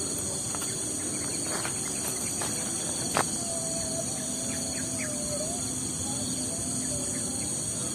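Steady high-pitched drone of an insect chorus, with a single sharp click about three seconds in and a faint wavering call about halfway through.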